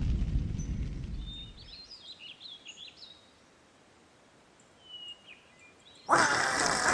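Cartoon soundtrack effects: a low rumble dying away, then scattered bird chirps over a quiet field, then about six seconds in a sudden loud, harsh noise that bursts in abruptly as a cartoon creature opens a huge toothy mouth.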